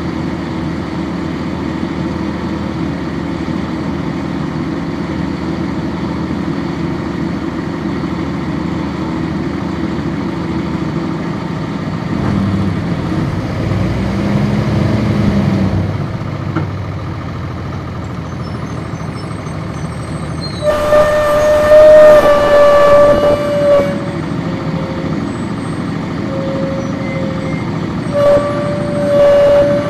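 1999 NovaBus RTS transit bus's Cummins ISC diesel engine running, heard on board; its pitch rises and then falls again about 12 to 16 seconds in as the bus pulls away. A loud horn sounds for about three seconds starting about 21 seconds in, with shorter horn notes near the end.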